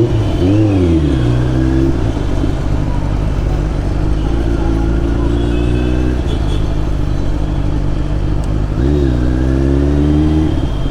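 Kawasaki Z900's inline-four engine running through an SC Project slip-on exhaust while riding. The pitch dips and rises twice near the start, holds fairly steady, then drops about nine seconds in and climbs again as the bike accelerates.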